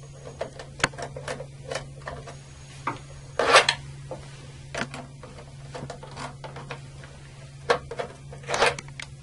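Phillips screwdriver backing out the front-cover screws of a circuit breaker: scattered small metal clicks and ticks, with two longer scraping rasps, one about three and a half seconds in and one near the end, over a steady low hum.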